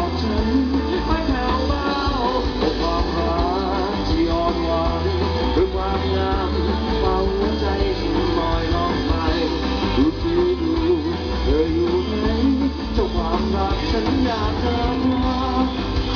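Live rock band playing through a concert PA: electric guitars, bass and drums with a sung melody over them, at full volume without a break.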